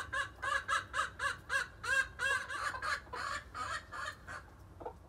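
Silkie chickens clucking in a rapid run of short repeated calls, about three to four a second, which stop about four seconds in.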